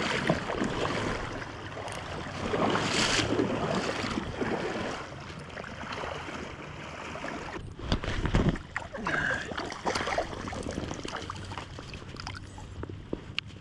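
River water splashing and rushing close by as a small half-pounder steelhead is played in on a float rod, with a couple of heavy thumps about eight seconds in.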